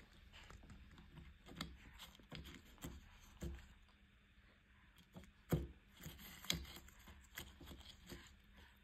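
Faint rustling and crackling of leaves as a kitten bites and tugs at leafy stems in a plastic cup, with scattered sharp clicks, the loudest about five and a half seconds in.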